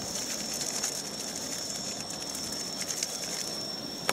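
Steady outdoor hiss with a constant thin high-pitched whine, and a few faint crackles of banana leaves being handled.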